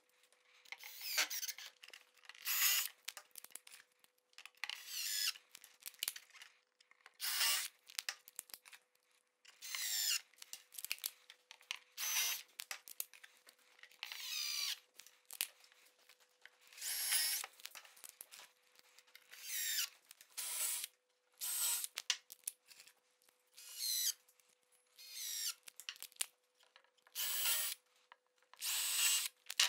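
Cordless drill-driver running in short bursts, about one every two seconds, driving screws through MDF shelf boxes into wooden battens.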